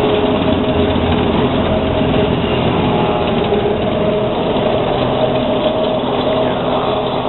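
Schynige Platte Railway electric rack train running steadily at low speed: a constant hum and whine of the traction motors and rack gearing over the rumble of the cars.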